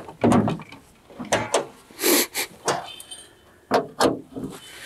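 Bonnet of a Suzuki Vitara being opened by hand: a string of separate clunks and metallic knocks from the latch and the lid.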